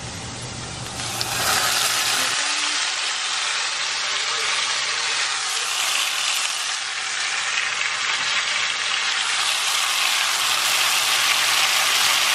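Pinto beans with a little of their broth sizzling as they fry in a pan, the first stage of making refried beans. The sizzle swells about a second in and then holds steady.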